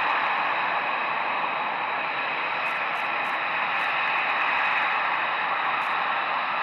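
F-22 Raptor jet engines running together on the ground: a steady, even rush of jet noise with a faint high whine over it.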